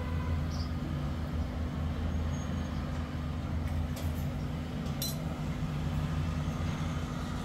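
A steady low mechanical hum, with two brief clicks about four and five seconds in.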